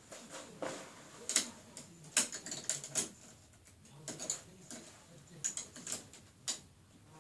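Irregular clusters of light clicks and rustles, typical of handling noise on a covered recording device.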